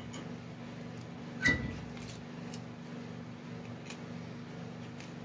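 Metal hand tool clinking against a truck's rear brake caliper while its connection is worked loose: one sharp metallic clink with a short ring about a second and a half in, and a fainter click near the end, over a steady low hum.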